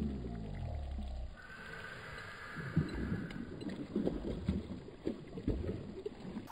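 Hooked bass thrashing at the water's surface while being played on the line, making a run of short, irregular splashes.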